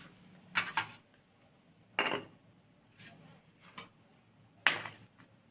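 A few light clicks and knocks of kitchen utensils and dishes being handled, scattered a second or so apart, the clearest about two seconds in and near the end.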